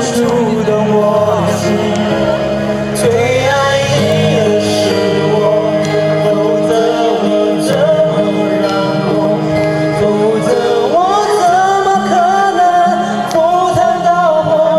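Music with singing: a love song being sung over a backing track, held sung notes gliding between pitches over a steady bass.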